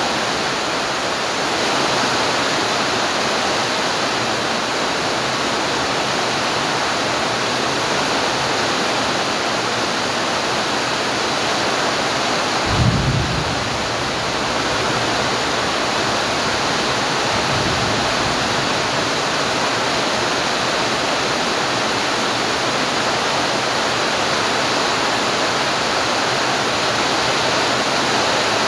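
Steady rain falling, an even hiss, with a brief low thump about halfway through.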